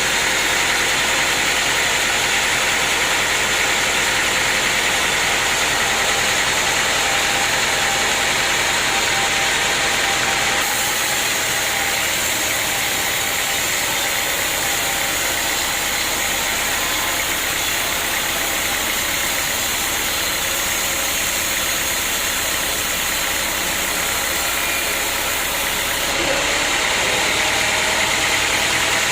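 Sawmill machinery running steadily, a continuous engine-like drone with a bright hiss on top. For about fifteen seconds in the middle the sound changes, with the highest hiss and the deepest rumble dropping back.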